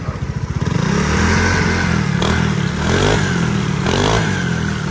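Honda SH150i scooter's single-cylinder engine idling, then revved up about a second in and held at raised, wavering revs. It is a test run after the CVT drive was rebuilt (new bearings, clutch and drive face refinished) to cure a whine and clunking from the drive.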